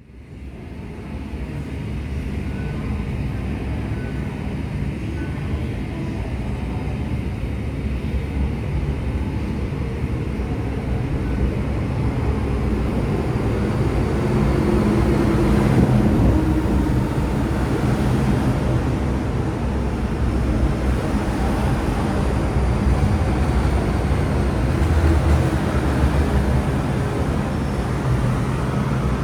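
Inside an MTR Tsuen Wan line M-Train car: the steady rumble of the train running, growing louder over the first half and then holding level.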